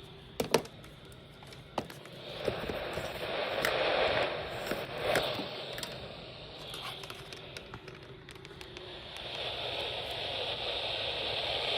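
Hiss and crackle of radio static, with a few sharp clicks in the first two seconds and the noise swelling and fading twice.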